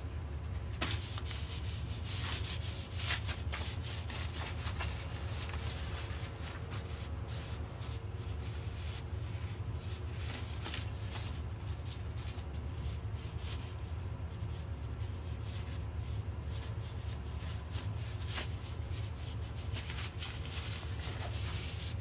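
Cloth rag rubbing linseed oil into a carved black walnut wand: an irregular run of brushing, scratching strokes over a steady low hum.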